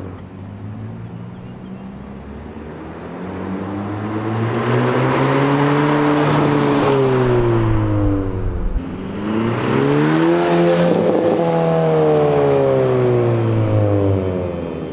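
2020 Honda Civic Si's turbocharged 1.5-litre four-cylinder, both mufflers deleted, driving past under acceleration. The exhaust note rises and falls in pitch twice, with a short break about nine seconds in, and is loudest through the middle.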